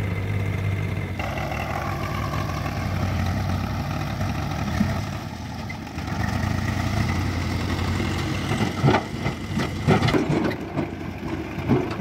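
Swaraj 735 FE tractor's three-cylinder diesel engine running steadily while its hydraulics tip a trailer of soil. It picks up a harder note about a second in. Irregular knocks and clatters come in near the end.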